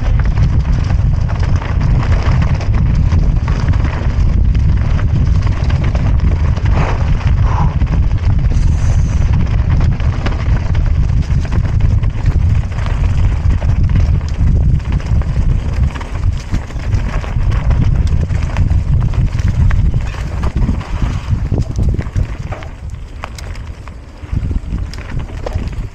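Wind buffeting the microphone as a mountain bike rides down a rough trail, with the rattle and knocks of the bike over roots and rocks. The rush eases off for a few seconds near the end, then picks up again.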